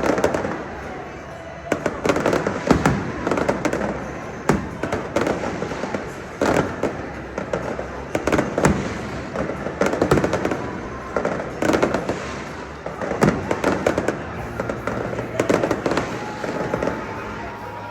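Fireworks going off: clusters of sharp bangs and crackles every second or two, with a faint rising whistle near the end.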